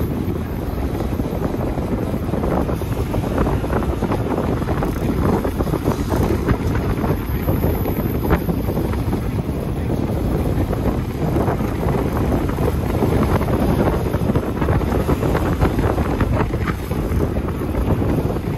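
Wind buffeting the microphone of a moving vehicle: a steady, loud rush with no distinct engine note standing out.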